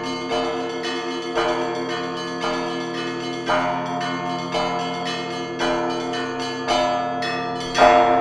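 Church bells ringing a peal: bells struck one after another about twice a second, their tones overlapping and ringing on. The loudest stroke comes near the end.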